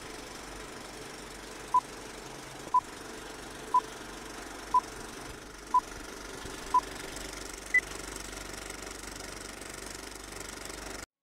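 Six short electronic beeps at one pitch, one each second, then a seventh beep a second later at a higher pitch, over a steady rumbling noise that cuts off suddenly near the end.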